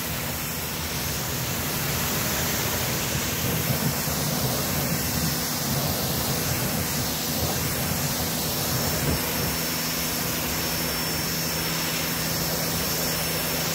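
Sun Joe electric pressure washer running steadily under load: the motor-driven pump hums while the jet of water hisses out of the nozzle and splashes against a car's wheel and fender.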